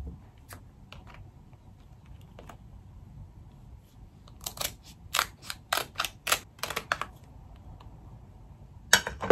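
Kitchen scissors snipping through the hard shell of a king crab leg: a run of sharp, crackling snips in the middle, with a few lighter clicks before and one more near the end.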